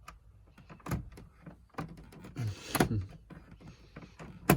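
Scattered plastic clicks, rattles and knocks from hands unwinding a makeshift fastener on a 2001 Volkswagen Beetle's glove box, with a sharp knock near the end as the loudest.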